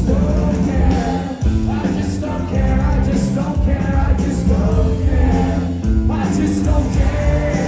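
Rock band playing live with singing, recorded from the crowd at a concert.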